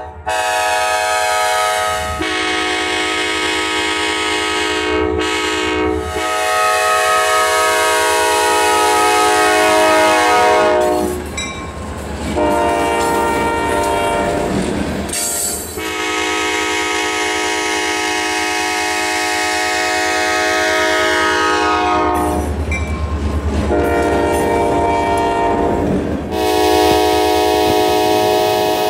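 Freight locomotive air horn blowing a chord in several long blasts as the train approaches and passes; the chord slides down in pitch as it goes by. Between blasts the low rumble of the train rolling on the rails.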